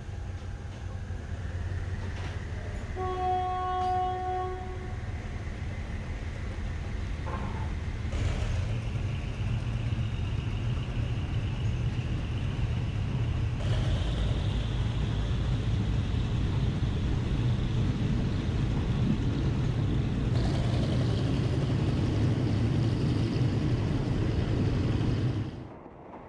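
Train running with a steady low rumble; its horn gives one blast of about two seconds a few seconds in. The running noise grows louder and then cuts off suddenly near the end.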